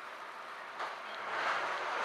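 Metra Rock Island Line diesel commuter train heard from inside a passenger car: a steady noise that swells from about a second in as the train gets moving from the station.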